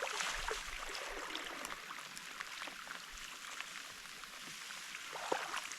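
Rain falling on lake water and a kayak: a steady hiss with many small scattered drop ticks.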